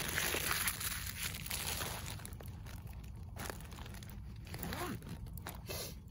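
Wood fire burning in a small titanium twig stove, hissing and crackling with scattered pops; the hiss is loudest for the first couple of seconds.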